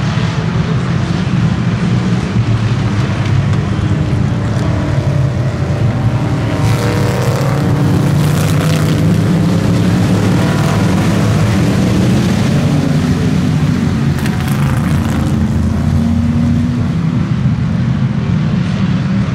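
A pack of vintage race cars' engines racing around an oval track in a loud, continuous drone. The sound swells brighter as cars go by close, about seven seconds in and again near fourteen seconds.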